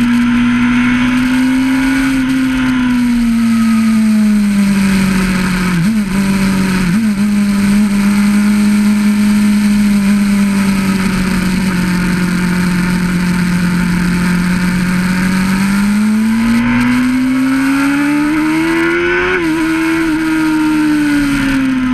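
600RR sport bike's engine running hard at high revs, heard from an onboard mount with wind rush over the microphone. The engine note holds steady, breaks briefly twice about six and seven seconds in, runs level through a long stretch, then climbs from about sixteen seconds in to another short break near nineteen seconds.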